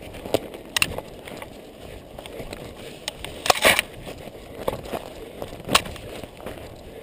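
Running footsteps on a forest floor with irregular crackling and rustling from the plastic-covered orienteering map in the runner's hand; the loudest crackle comes about three and a half seconds in.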